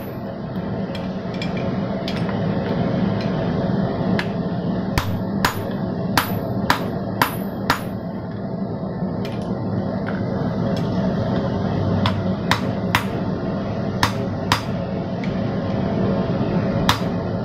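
Hand hammer blows on a red-hot steel hammer head held in tongs on an anvil, each a sharp strike with a brief metallic ring, coming one to two a second in uneven runs with short pauses between. A steady low hum runs underneath.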